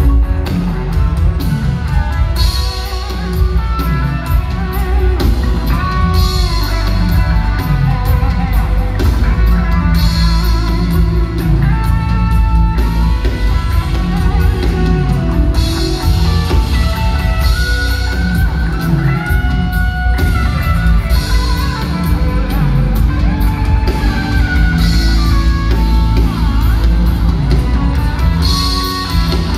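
Live band music with electric guitar, bass and drum kit playing a steady beat.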